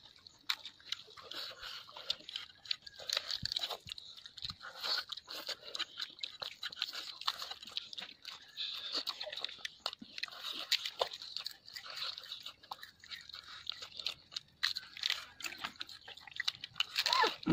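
Close-miked chewing and mouth sounds of people eating rice and roast chicken with their hands, a dense run of small wet clicks and smacks. A brief louder sound comes near the end.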